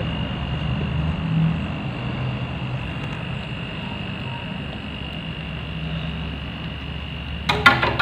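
Steady low electrical hum with a thin high whine over it, then a quick cluster of sharp metallic clicks near the end as tools and tubing are handled.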